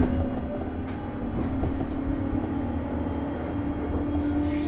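JR West 201 series electric commuter train heard from inside the car while accelerating: the traction-motor hum slowly rises in pitch over a steady low rumble of wheels on rail. A short hiss comes near the end.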